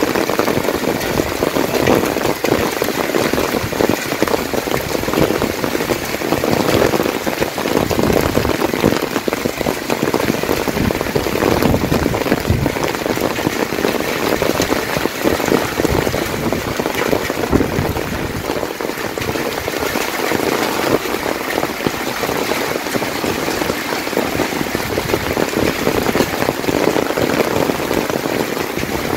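Heavy rain falling steadily, a dense, even patter of countless drops striking surfaces.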